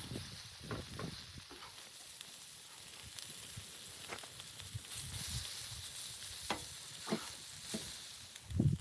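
Wood fire crackling, with scattered sharp pops over a steady high hiss, and a dull thump near the end.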